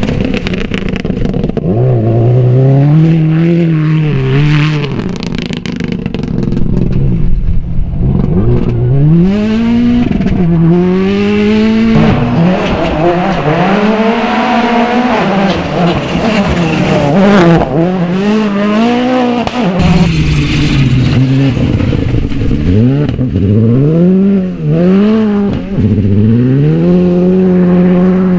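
Rally cars, among them a Subaru Impreza and a Skoda Fabia R5, driven flat out one after another on muddy gravel stages. The engines rev high and drop sharply at each gear change as the cars pass, with the sound changing abruptly a few times between cars.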